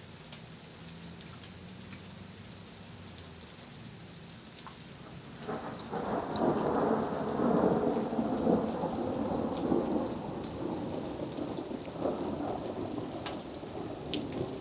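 Steady rain with scattered drops ticking, then a long roll of thunder that begins about five and a half seconds in, is loudest for the next few seconds and slowly fades while the rain keeps falling.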